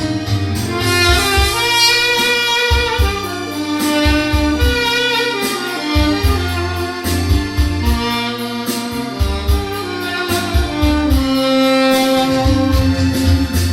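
Tenor saxophone with a stainless steel mouthpiece, played dry without added effects, holding long notes of a slow melody. Under it runs an accompaniment with a bass line and a steady beat.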